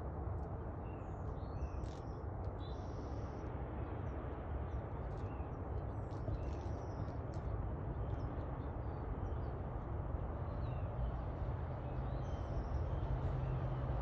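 Scattered short, high bird chirps over a steady low background rumble that grows a little louder near the end.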